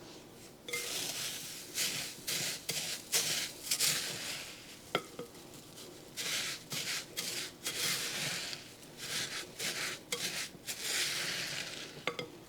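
A whisk stirring crispy rice cereal into a chocolate and coconut oil mixture in a mixing bowl: repeated crackly, rustling strokes, a couple a second, with a sharp click about five seconds in.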